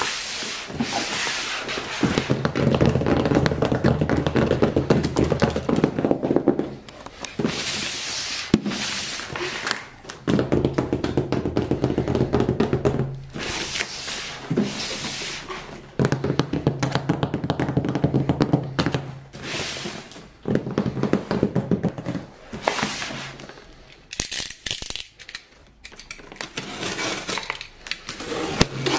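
A large taped cardboard box being slid and turned across a tabletop: stretches of scraping rumble a few seconds long, broken by knocks as it is set down.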